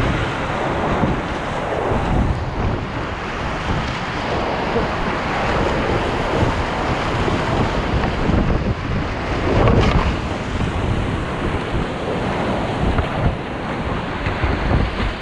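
Whitewater rapids rushing loudly around a kayak, with the splash of the hull and paddle blades through the waves and wind buffeting the microphone. A louder burst of splashing comes about ten seconds in.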